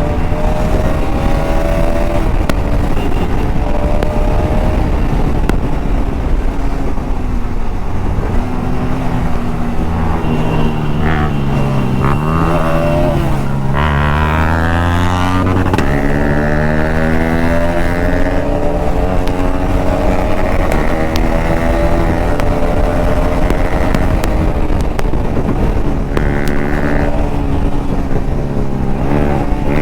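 Bajaj Pulsar RS200's single-cylinder engine under hard riding, its pitch rising and falling with throttle and gear changes; about midway the revs sink low, then climb steeply again.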